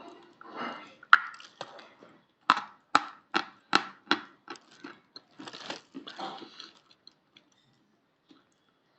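Edible chalk being bitten and chewed: a series of sharp crunches, about two or three a second at their densest, thinning out after about seven seconds.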